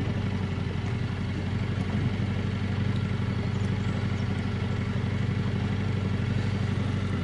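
Boat outboard motor running steadily at slow speed, an even low hum.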